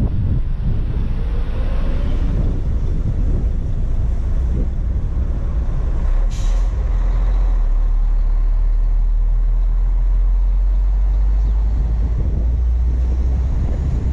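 Heavy truck driving slowly, heard from its cab roof: a low engine and wind rumble, with one short, sharp hiss of an air brake about six seconds in.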